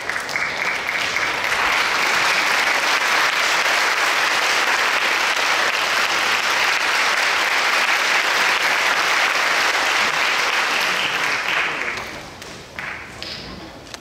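A concert audience applauding, steady and dense, then dying away about twelve seconds in, with a few last scattered claps.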